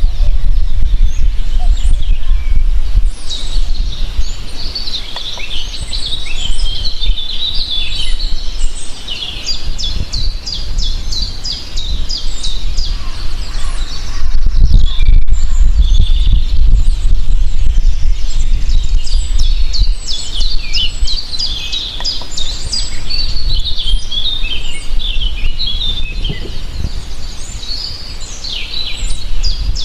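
Several songbirds chirping and singing, with quick repeated trills now and then, over a steady low rumble.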